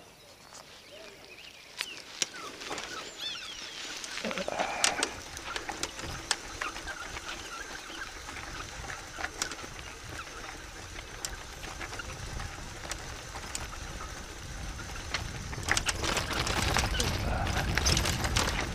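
Mountain bike rolling downhill on a rocky dirt track: tyres crunching over loose stones and the bike rattling, with a low rush of wind getting louder near the end as speed builds.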